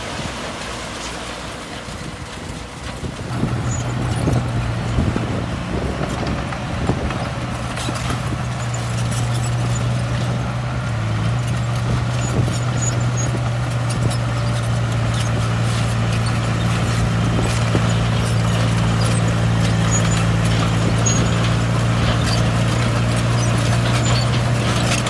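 Crawler bulldozer's diesel engine working, its note rising about three seconds in and then holding steady under load, with clanking knocks from the steel tracks and blade.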